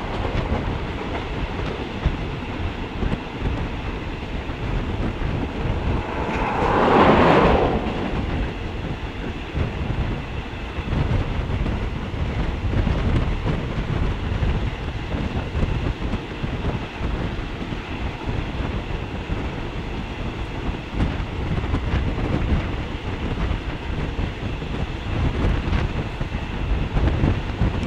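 Passenger train running steadily along the track, heard from an open carriage window: the wheels clatter over the rails under a constant rush of travel noise. About seven seconds in, a louder rushing swell rises and fades within a second or two.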